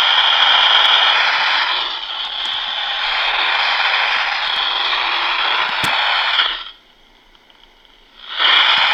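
Electromagnetic interference from a cell phone as it powers on, picked up by an AM radio as a loud, harsh buzzing hiss. The noise cuts off about seven seconds in and starts again near the end. It is the sign that the phone is turning on.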